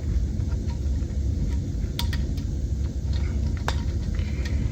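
A steady low rumble, with a few light clicks and taps of metal parts being handled.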